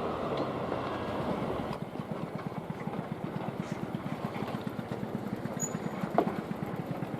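The noise of a passing train trails off in the first couple of seconds. Then a road vehicle's engine idles with a fast, even low pulsing. There is a single sharp click about six seconds in.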